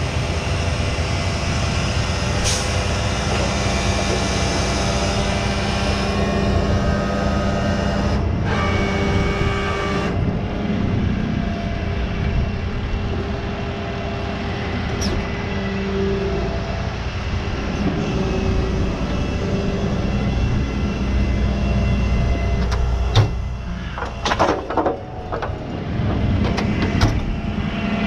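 Heavy-duty tow truck's diesel engine running steadily, with a whine that wavers in pitch through the middle stretch while the wrecker's underlift hydraulics are worked by wireless remote. A few sharp clicks and knocks come near the end.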